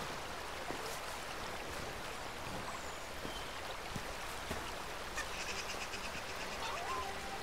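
Steady rush of a rocky stream flowing. Near the end, faint held musical tones come in over it.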